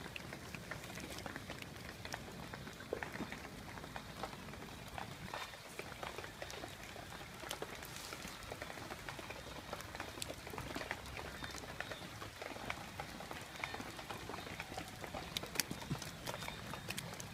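Wet leaf litter and twigs crackling and rustling as they are pushed aside and disturbed, many small sharp clicks at an irregular pace over a faint steady hiss.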